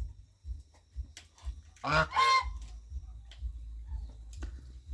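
A goose honking twice in quick succession about two seconds in.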